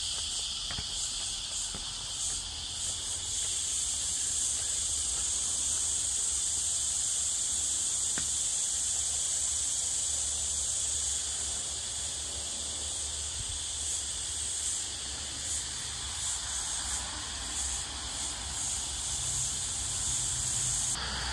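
A steady, high-pitched insect chorus that swells and dips slightly in strength, over a faint low rumble.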